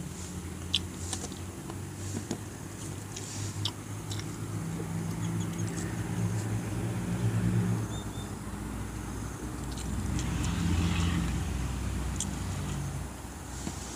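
Close-up eating sounds: wet chewing and lip smacks heard as short sharp clicks. Under them a low motor hum swells twice, once from about four to eight seconds in and again around ten to twelve seconds.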